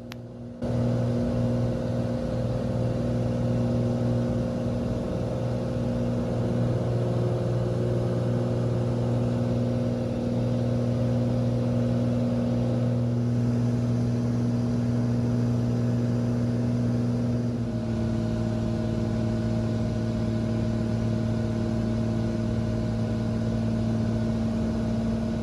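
Cessna 182's piston engine and propeller running at full takeoff power in the cockpit: a loud, steady drone with a strong low hum. Its tone shifts slightly about eighteen seconds in.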